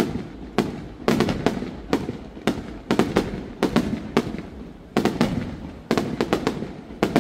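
Aerial fireworks shells bursting in a rapid, irregular series of sharp bangs, two or three a second, some coming in quick doubles, each fading off before the next.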